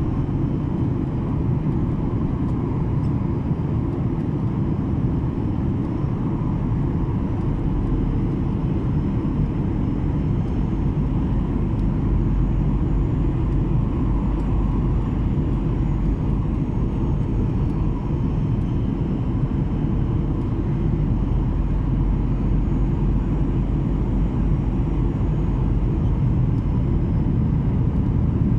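Steady airliner cabin noise: the low rumble of the engines and airflow heard from inside a Skymark Boeing 737-800 in flight.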